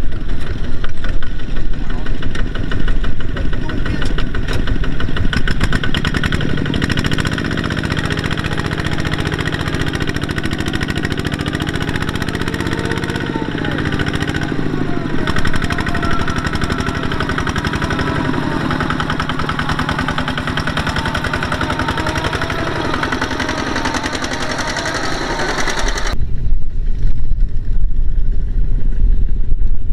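Single-cylinder diesel engine of a Kubota two-wheel tractor running hard under load with a fast chugging beat as the tractor churns through deep mud, with voices over it. About four seconds before the end the sound cuts abruptly to a duller engine rumble.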